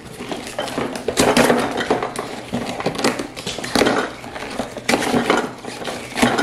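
Plastic kit parts and packaging being handled in a cardboard box: plastic pieces clattering against each other, with rustling paper and plastic bags, in a series of short scrapes and knocks.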